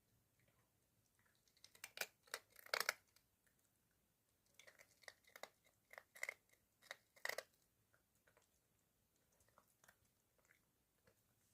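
Toy poodle chewing and crunching crunchy food, in two short bouts of crackling bites with a pause between them.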